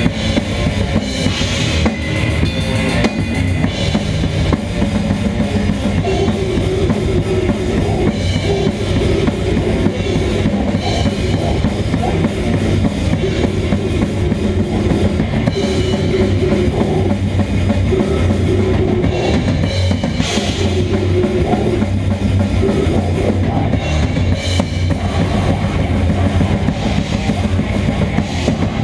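Death metal band playing live, with the drum kit loud and close: kick drum, snare and cymbals played without a break over held guitar and bass notes.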